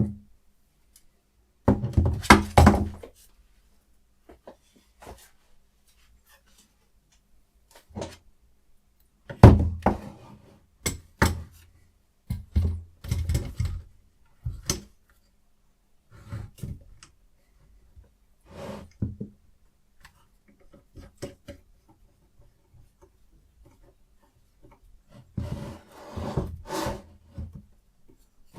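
Irregular knocks, clicks and short scrapes from handling a Hapstone RS guided knife sharpener and its parts, coming in scattered groups with silent gaps between them.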